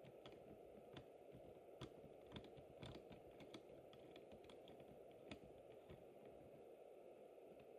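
Faint, irregular small clicks over a low steady hiss, near silence: the mechanism of a working OO-gauge model crane as it raises its jib and hoists a pallet load.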